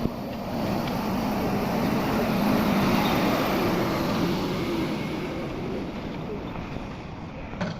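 Excavator's diesel engine running under load, growing louder a couple of seconds in and then easing off.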